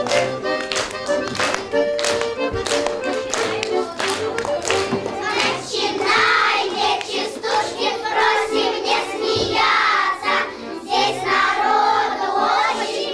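Lively Russian folk dance tune with a sharp steady beat; from about halfway a group of children sings a chastushka over it.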